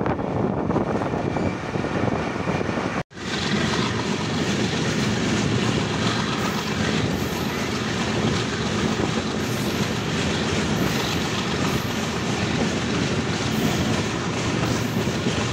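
Passenger train coaches running at speed, heard from an open coach window: a steady rumble of wheels on rails mixed with rushing air. The sound breaks off for an instant about three seconds in, then carries on just as steady.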